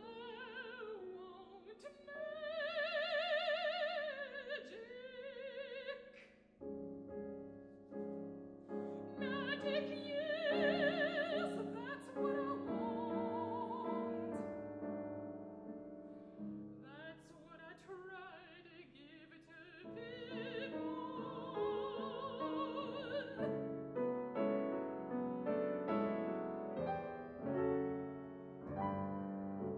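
Operatic soprano singing an aria in long phrases with wide vibrato, accompanied by a grand piano. For the last few seconds the voice stops and the piano plays chords alone.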